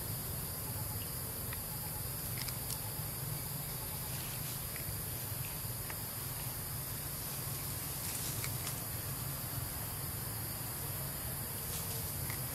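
Steady high-pitched insect chorus, like crickets or cicadas, over a constant low hum, with a few faint scattered clicks.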